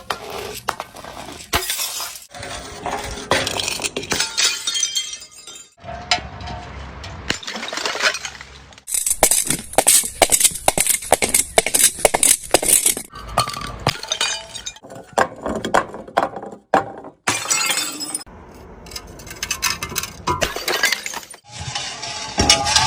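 Glass bottles being smashed, breaking and crunching over and over with clinking shards. The sharp crunches come thickest about nine to thirteen seconds in.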